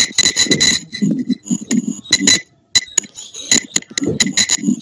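A student's voice over an online video call, broken up by rapid crackles and clicks with high ringing tones: the student's faulty microphone is garbling the sound, which the class calls a bad sound.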